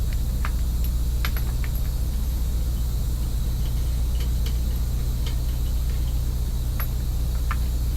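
An engine idling steadily, with scattered light clicks and clinks over it.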